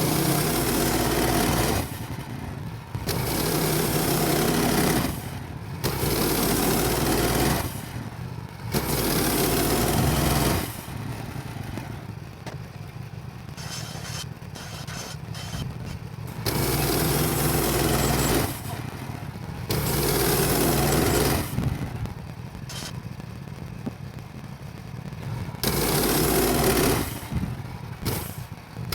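Woodland Mills HM130MAX portable bandsaw mill's small gas engine running while sawing tulip poplar. Louder stretches of a second or two alternate with quieter ones.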